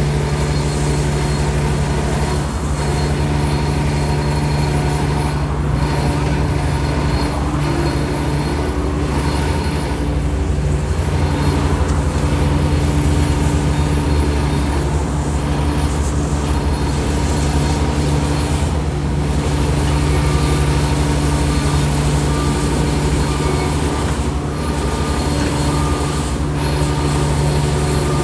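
Heavy diesel construction machine, likely the road roller, running steadily at constant speed. A loud, even engine drone with a low rumble that holds the same pitch throughout.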